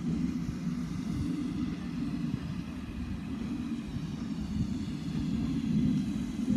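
Steady low rumble of the approaching steam locomotive 6990 Witherslack Hall, a GWR Modified Hall class 4-6-0, heard from a distance.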